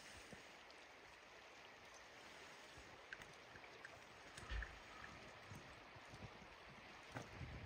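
Near silence: a faint, steady hiss of open river water, broken by a few soft low thumps, the loudest about halfway through.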